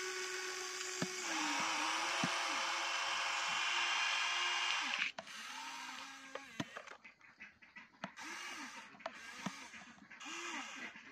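Huina radio-controlled excavator's electric motors whining as the arm and bucket dig and move: a steady whine for about the first five seconds, then several short whines that rise and fall in pitch, with light clicks and scrapes of soil.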